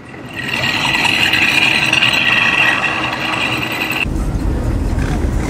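A car engine running with a steady high-pitched whine for about four seconds, then an abrupt change to a low, even rumble.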